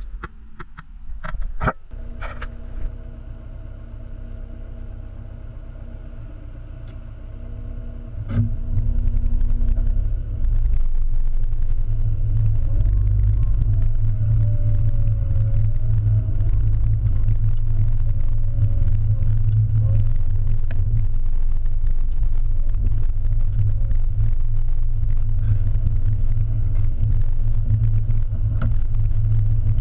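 Car driving, heard from inside the cabin: a steady low rumble of engine and road noise that grows louder about eight seconds in. A few short knocks come in the first two seconds.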